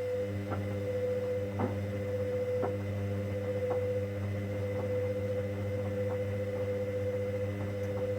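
Hoover Dynamic Next washing machine running its 90 °C cotton main wash: a steady motor hum with a whine, and light taps about once a second.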